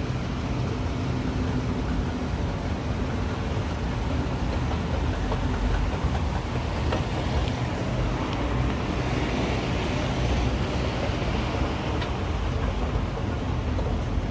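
Otis escalator running: a steady mechanical hum with low steady tones under a broad hiss, with a few faint clicks. The higher hiss swells for a few seconds in the middle.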